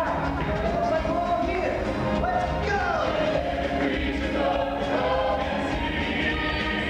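Music with a group of voices singing, choir-like, over a full backing.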